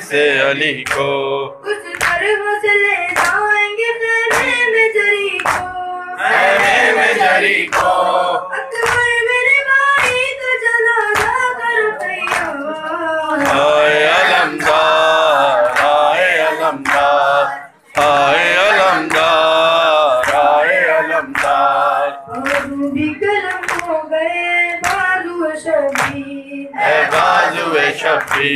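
A boy's voice chanting an Urdu noha, a Shia lament, with other boys' voices joining in chorus. Rhythmic chest-beating (matam) slaps keep time at about two strikes a second.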